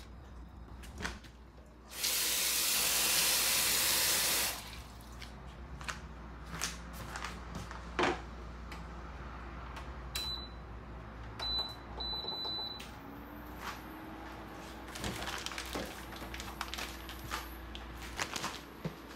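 A tap running for about two and a half seconds, then light clinks and knocks of things being handled. Near the middle come three short electronic beeps, after which an appliance starts a steady hum.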